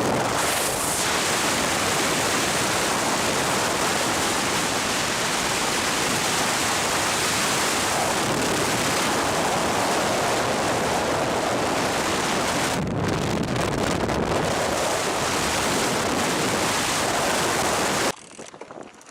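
Loud, steady rushing noise with no clear tone or rhythm, cutting off suddenly near the end.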